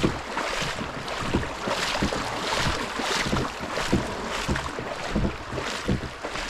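Kayak paddle strokes splashing through a shallow, running creek, repeated every half second or so over a steady wash of moving water.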